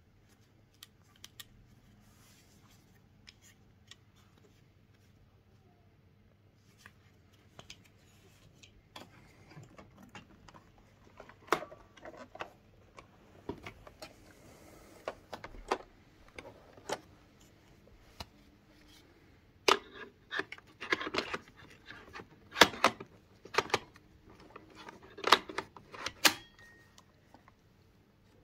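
Irregular clicks and knocks of hard objects being handled, sparse at first and much busier in the second half, typical of plastic parts and packaging being taken out and fitted during the unboxing of a robot vacuum.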